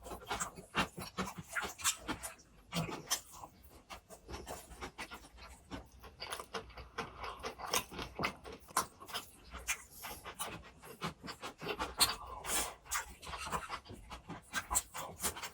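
Close-miked eating sounds: chewing and lip smacking on grilled pork belly (samgyeopsal), a dense, irregular run of short wet clicks.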